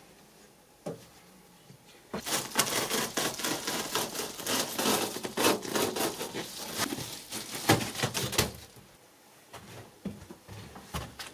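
Foil-faced foam insulation sheet crinkling and crackling as it is handled and pressed onto the wall, starting about two seconds in and dying away after about six seconds.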